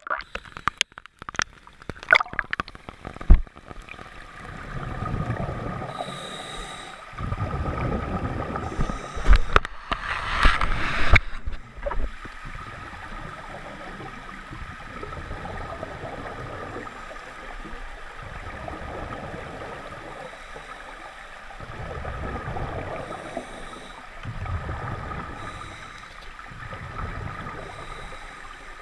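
Underwater sound of a scuba diver's breathing. The exhaled bubbles rumble and gurgle in swells every few seconds over a steady water hiss. Sharp clicks and knocks come in the first few seconds.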